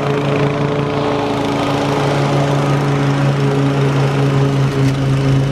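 Toro TimeMaster 30-inch walk-behind mower's Briggs & Stratton engine running steadily while the mower cuts grass.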